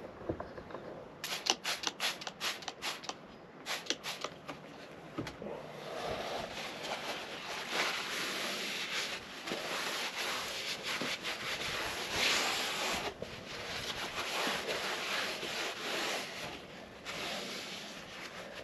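A cloth wiping and scrubbing a grimy truck dashboard. First come a run of short, quick rubbing strokes, then about six seconds in it turns to steadier, continuous scrubbing.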